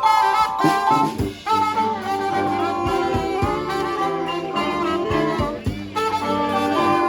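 Brass band playing live, several horns holding notes together in harmony, with sharp percussive hits through it.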